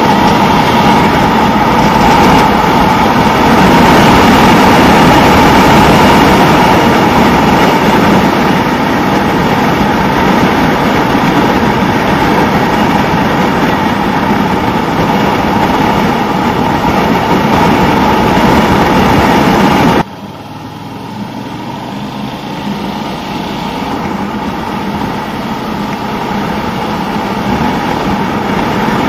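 Suzuki SV650 motorcycle on the move: its 645 cc V-twin engine running under a loud rush of wind noise. About two-thirds of the way through the sound drops sharply, then slowly builds again.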